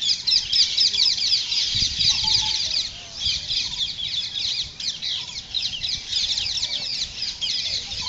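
Birds chattering: a dense, continuous run of quick, high, downward-sweeping notes from several calls overlapping.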